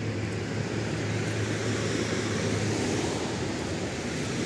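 Tram running along the track: a steady rumble of wheels and running gear with a constant low hum.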